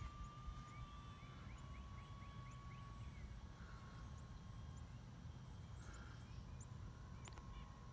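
Faint, steady whine of the electric Flightline F8F Bearcat RC warbird's motor and propeller flying at a distance, sinking a little in pitch over the first few seconds. Under it is a low rumble of wind on the microphone.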